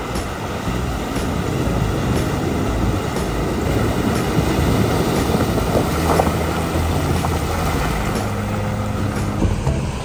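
A Hyundai SUV driving through a shallow river ford: its engine running under the steady rush and splash of water thrown up by the tyres.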